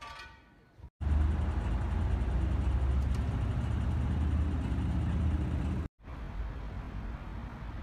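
Low, steady rumble of road traffic on a city street, broken off abruptly twice, once about a second in and again near six seconds in; the middle stretch is the loudest.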